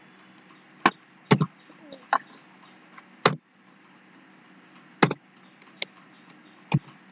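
Computer keyboard keys pressed one at a time during text editing: about eight sharp, separate clacks at an uneven pace over a faint steady hum.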